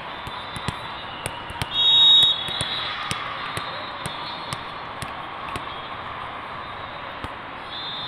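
A referee's whistle blows once, short and loud, about two seconds in, over a steady murmur of a crowd in a sports hall. Scattered sharp slaps of volleyballs being bounced and struck run through it.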